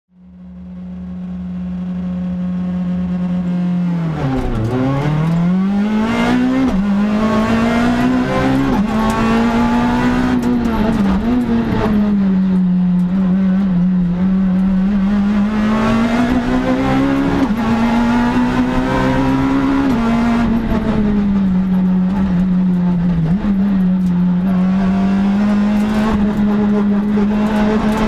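Citroën C2 R2 Max rally car's four-cylinder engine, heard from inside the cabin, fading in while held at steady high revs. About four seconds in the pitch dips sharply and climbs as the car pulls away, then keeps rising and falling with quick gear changes as it is driven hard.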